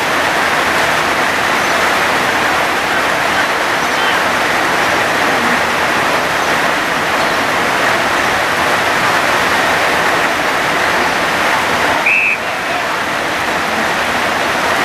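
Heavy rain pouring down, a loud steady hiss. About twelve seconds in comes one short, high umpire's whistle blast.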